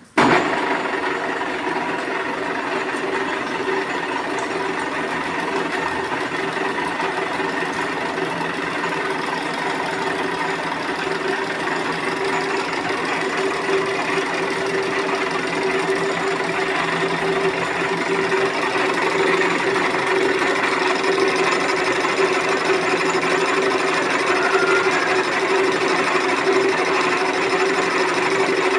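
Large engine lathe running: its motor and gear train make a steady mechanical hum with a clear held tone, coming on abruptly at the very start.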